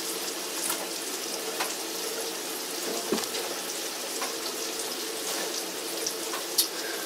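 Bacon, chicken and mushrooms sizzling in a frying pan: a steady hiss with scattered small crackles and pops, over a faint low hum.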